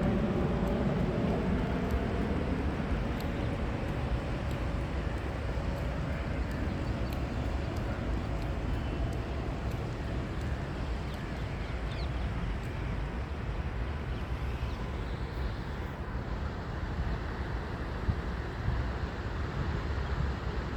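Steady outdoor noise with a low rumble, and a droning engine fading away over the first few seconds.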